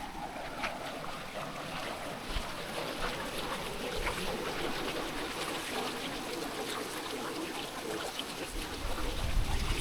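Creek water running steadily over rocks, with light wind buffeting the microphone near the end.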